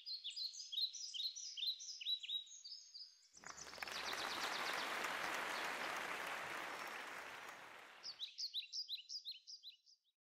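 Small birds chirping in quick, repeated falling notes, broken in the middle by a rushing swell of noise that rises and fades over about five seconds, after which the chirping returns briefly.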